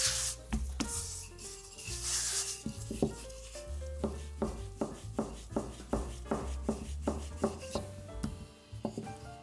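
Hand food-preparation sounds on a wooden surface: rubbing and scraping, then a quick, even run of short strokes about three a second, over soft background music.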